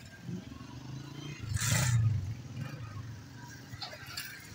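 A small motorcycle engine running close by at low speed, with a loud swell of engine and rushing noise about a second and a half in.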